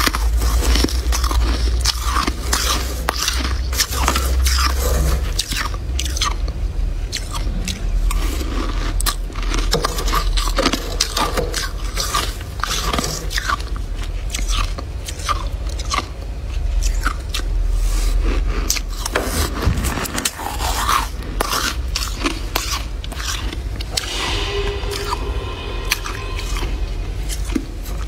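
Metal spoon scraping and crunching through thick freezer frost in quick, irregular strokes.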